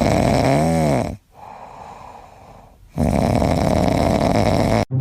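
A sleeping pet snoring loudly: two long noisy breaths with a quieter pause between them, the first carrying a short whistling note that rises and falls. It cuts off abruptly near the end.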